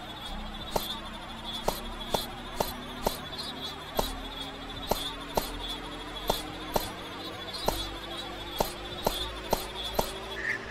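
Experimental electronic sound composition: sharp clicks about twice a second over a steady high buzzing hiss and a low tone that slowly rises in pitch. The buzzing drops lower near the end.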